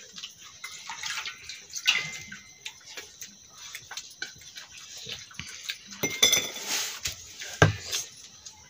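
Stainless-steel plates, bowls and tumblers clinking and scraping as hands mix and scoop rice from them. There is a ringing metal clink about two seconds in, a louder clatter about six seconds in, and a low thump shortly after.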